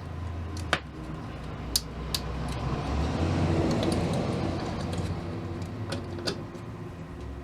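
AA batteries being handled and pressed into a transistor radio's battery holder: several sharp clicks, with a stretch of scraping and rattling in the middle.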